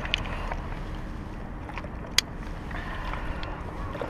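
Handling sounds of a largemouth or smallmouth bass being landed with a plastic lip-grip tool: a few soft clicks and one sharp click about two seconds in, over a steady background rush.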